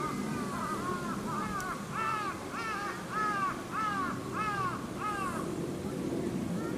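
A crow cawing in a steady series of about a dozen caws, roughly two a second, loudest in the middle and stopping about five and a half seconds in.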